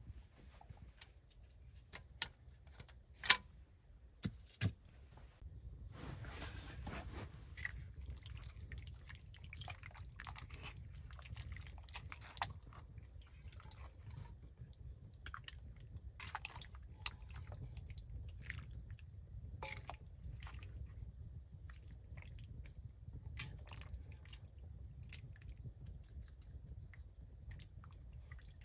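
A few sharp wooden knocks in the first five seconds, the loudest about three seconds in, as split logs are set down. Then a ladle stirs and scrapes in a metal pot of stew, and wet spoonfuls of stew slop into a wooden bowl, with many small clicks.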